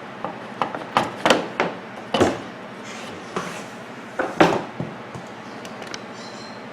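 Irregular knocks and clatters, about a dozen, bunched in the first five seconds: hands and tools working on an opened microwave oven, with its metal parts being handled.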